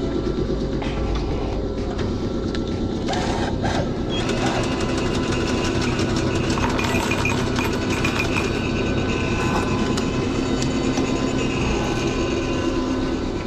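Ichigo Densha electric railcar's onboard machinery running with a steady, fast-pulsing mechanical hum. There are a few knocks about three seconds in.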